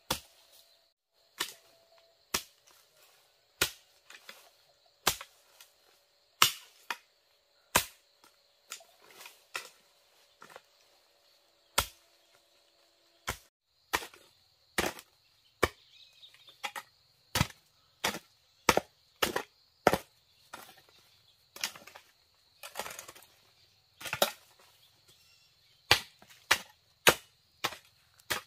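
Repeated sharp chopping strikes on bamboo or wood, at first about one every three-quarters of a second, then quicker and more uneven from about halfway on, close to two a second.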